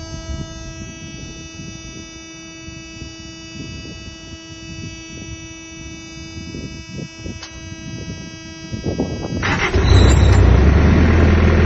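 Thermo King trailer refrigeration unit starting: a steady electronic alarm tone sounds for about nine seconds and cuts off, then the unit's diesel engine cranks briefly and catches about ten seconds in, running loudly with a low drone.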